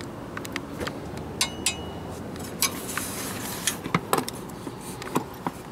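Irregular sharp metallic clicks and clinks of a socket wrench and extension being fitted onto and worked around a bolt.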